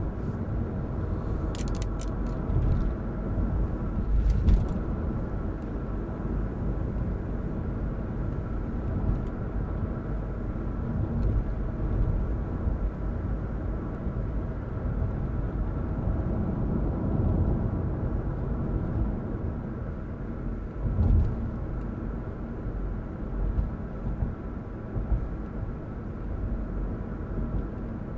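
Car cabin noise while driving at road speed: a steady low rumble of tyres and engine heard from inside the car. There are a few short clicks in the first seconds and a single knock about three-quarters of the way through.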